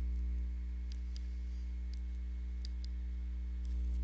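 Scattered light clicks and taps of a stylus on a pen tablet as words are handwritten, over a steady low electrical hum.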